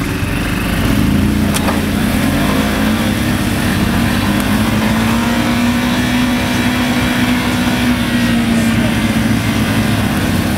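ATV engine held at high revs under load, driven through deep mud. Its pitch climbs over the first second, holds fairly steady and eases slightly near the end.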